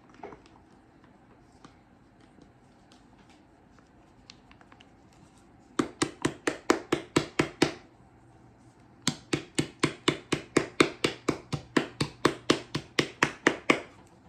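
Plastic hair-dye applicator bottle shaken hard to mix the dye and lightening booster, a quick rhythm of sloshing knocks about five a second. It comes in two bouts: a short one about six seconds in, then a longer one after a brief pause.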